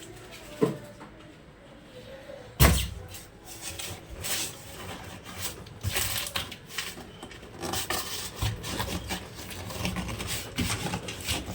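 Handling noises from a new washing machine and its packing: a sharp knock about two and a half seconds in, then a run of clicks, taps and rubbing.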